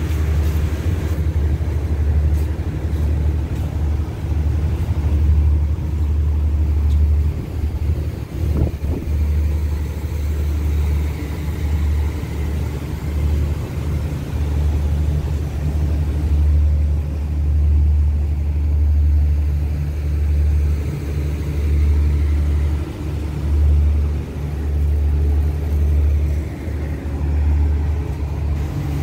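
Diesel-electric locomotive engine running with a steady, deep rumble.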